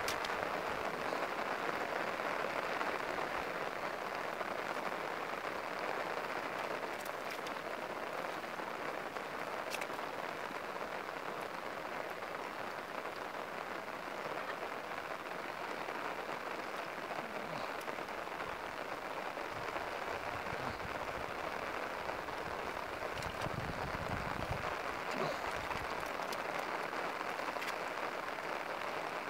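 Steady rain falling on grass and shallow floodwater, an even hiss throughout, with a few faint clicks and some brief low rumbles about three-quarters of the way through.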